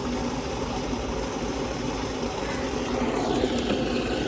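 John Deere tractor's diesel engine running steadily at idle.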